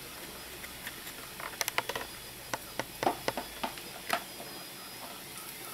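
Pizza frying in a frying pan on a gas stove: a low steady sizzle with about a dozen sharp crackles and pops of the hot pan between about one and four seconds in, the loudest near the end of that stretch.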